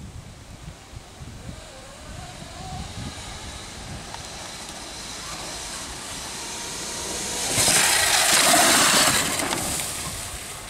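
Electric dirt bike riding up to a jump: a faint motor whine rising in pitch about two seconds in, then a loud rush of tyre and wind noise for about two seconds near the end as it passes close by.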